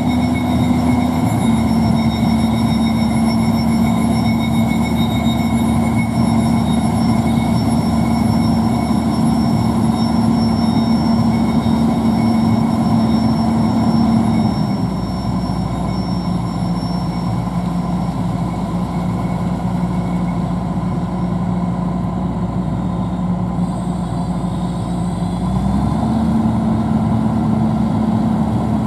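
A heavy engine running steadily under load. Its pitch drops to a lower speed about halfway through and rises back up near the end.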